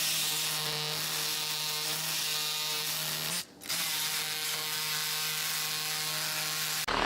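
A power tool's motor runs with a steady whine while cutting up a metal cart for scrap. It stops briefly about three and a half seconds in, then runs again.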